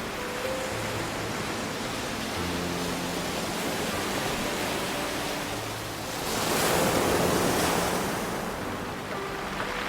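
Ocean waves washing on a beach: a steady hiss of surf, with one wave swelling and breaking about six and a half seconds in and ebbing away by about nine seconds. Faint low sustained notes sit underneath.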